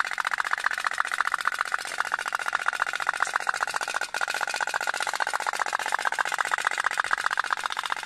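Toy pop-pop (otok-otok) steam boat running, its little flash-steam engine putting out a rapid, even stream of pops, with a brief dip about halfway through.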